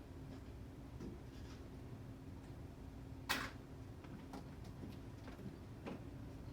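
A single short hiccup about three seconds in, with a few much fainter small sounds around it over a low steady hum.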